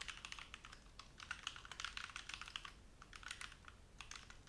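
Typing on a computer keyboard: quick runs of key clicks, with a short pause about three seconds in.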